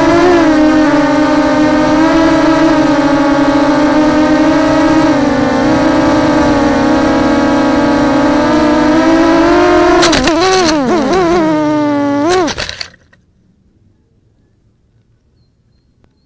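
Small FPV quadcopter's motors and propellers whining steadily, as heard from its onboard camera. About ten seconds in the pitch swings down and up with a few sharp knocks. Then the motors cut off as the quad comes down in a leafy plant, likely a crash.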